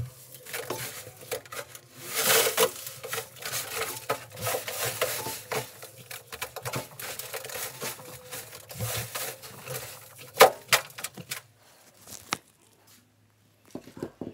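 A hand scraping and peeling a thick mat of lint off a surface: irregular crinkly rustling and scratching with scattered small clicks, which dies away about twelve seconds in.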